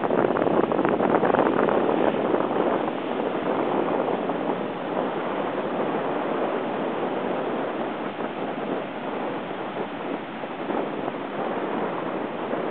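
Heavy surf from a hurricane swell breaking and washing up the beach, with wind buffeting the microphone. Loudest in the first few seconds, then easing slightly.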